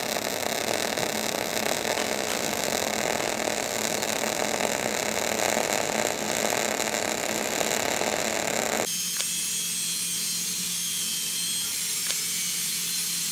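MIG welding arc running on an uphill stringer fill pass up a vertical steel plate, a steady crackling hiss that cuts off abruptly about nine seconds in. A quieter steady hiss with a faint low hum follows.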